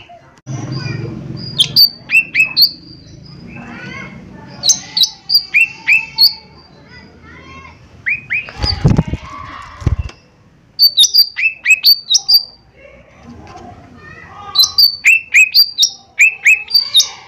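Cucak ijo mini (small leafbird) singing a loud, fast song: runs of sharp, high chirps that drop in pitch, coming in bursts of several notes every few seconds, with softer chattering warbles in between.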